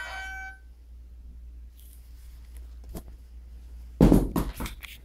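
Music stops just after the start. A couple of faint clicks follow, then about four seconds in comes a short burst of loud knocks and bumps close to the microphone.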